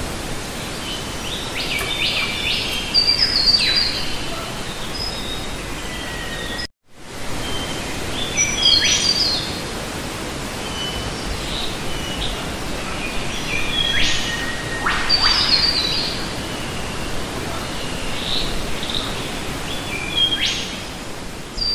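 Steady rush of a small waterfall splashing into a rock pool, with birds chirping in short calls over it throughout. The sound cuts out for a moment about seven seconds in.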